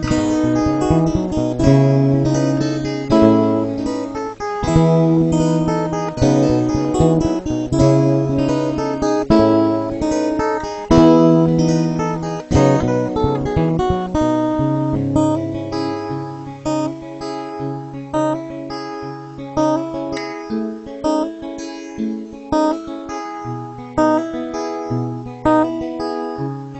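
Acoustic guitar playing the instrumental introduction of a song: strummed chords over a moving bass line, thinning to sparser, softer picked notes about halfway through.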